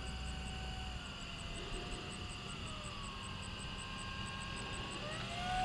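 Electric motor and propeller of an E-flite Carbon-Z Cub SS 2.1m RC plane on a slow pass at part throttle: a faint, steady whine that sags gently in pitch, then rises near the end.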